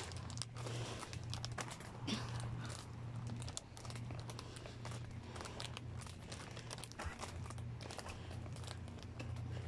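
Irregular crackling and rustling clicks over a steady low rumble: handling noise from a handheld camera carried by someone walking along a path.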